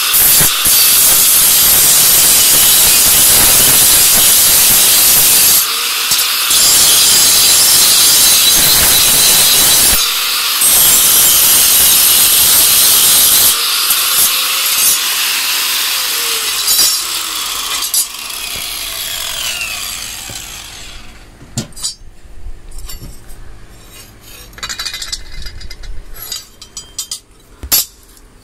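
Angle grinder grinding the edge of a leaf-spring steel knife blade, a loud steady hiss that breaks off briefly twice as the disc is lifted. About 14 seconds in the grinding stops and the motor winds down with a falling whine, leaving quieter scrapes and clicks near the end.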